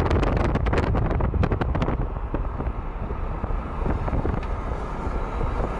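Wind buffeting the microphone at an open car window while driving, over the low rumble of the car on the road. The gusting is heavy at first and eases about two seconds in.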